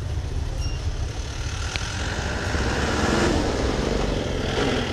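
Street traffic: motor vehicle engines running, with one vehicle passing close and loudest about three seconds in.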